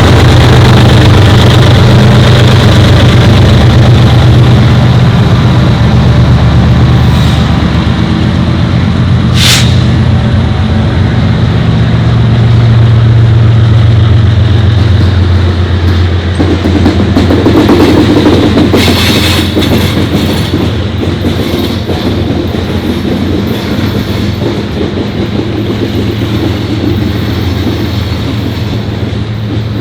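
EMD SD70ACe diesel locomotives working hard to pull a loaded coal train away from a stop, a loud, deep engine drone over the clatter of the rolling coal cars. The engine sound eases and fades gradually in the later part.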